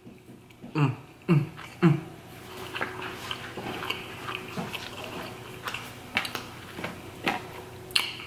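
A man's voice making three short low sounds, each falling in pitch, about a second in, followed by a few light clicks and rustles of handling food, over a faint steady hum.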